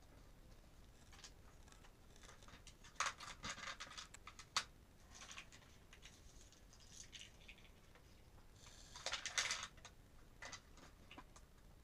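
Plastic parts of a My Little Pony Friendship Express toy train being handled: scattered light clicks and rattles, with a busier run of clicking about three seconds in and another around nine seconds.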